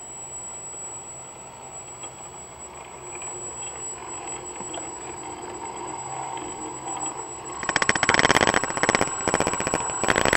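Home-made CNC machine's stepper motor driving its carriage along furniture drawer slides: after a quieter stretch with a faint hum, a loud, fast, even buzzing rattle starts about three-quarters of the way in and keeps going. A thin high whine runs underneath.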